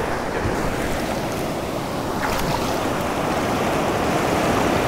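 Ocean surf breaking and washing up a sandy beach, a steady rush of water that grows a little louder near the end.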